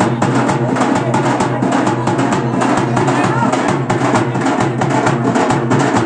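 Loud, rapid drumming from a procession drum group, the strokes coming in a fast, steady rhythm without a break.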